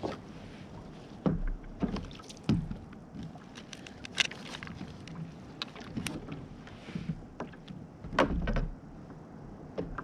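Irregular knocks, taps and clicks of a snapper and tackle being handled on a fishing kayak, with a louder cluster of knocks near the end.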